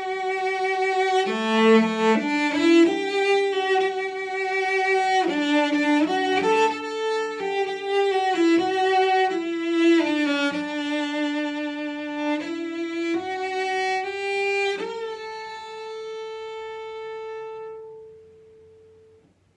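Solo cello bowed, playing a slow melody with vibrato, ending on one long held note that fades away near the end.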